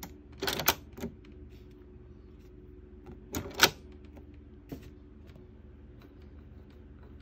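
Load lever on a Bell & Howell 2580 16mm film projector being moved by hand: two clusters of sharp plastic clicks and clacks, about half a second in and about three and a half seconds in, the second the loudest, with one lighter click a second later. A steady low hum runs underneath.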